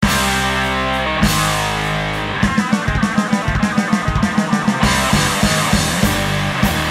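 Background rock music with electric guitar and drum kit, with a quick run of drum beats, about five a second, from about two and a half seconds in.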